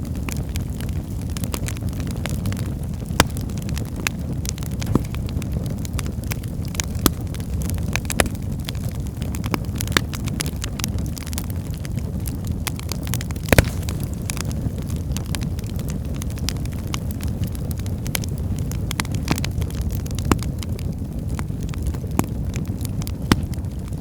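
Wood fire burning in a fireplace: a steady low rumble of flames with frequent sharp crackles and pops from the logs, one louder pop about halfway through.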